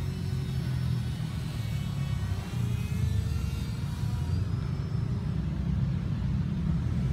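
A small propeller motor on an RC paramotor gives a faint whine that slowly rises and falls in pitch as it is throttled on its landing approach. A steady low rumble runs underneath and is the loudest sound.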